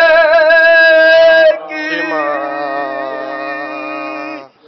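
A voice singing long held notes with vibrato: a loud one for about the first second and a half, then a quieter, lower note that stops just before the end.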